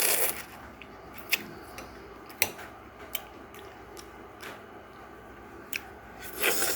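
A utensil clicking and tapping on a dish while watermelon is eaten: sharp clicks every second or so, with soft chewing between. A short hissy noise comes at the start and again near the end.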